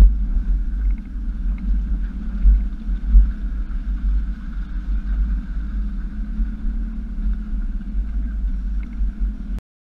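A 2007 Jeep Wrangler Unlimited is driven slowly along a rough dirt off-road trail, giving a steady low engine rumble with a few louder thumps. The sound cuts off abruptly near the end.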